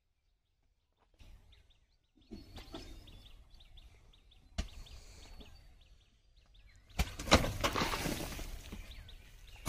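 Birds chirping over a low rumble, with a sharp knock about four and a half seconds in. Then a basket of soil is tipped into a tractor trolley: a thump and about two seconds of rushing, falling earth, the loudest sound here.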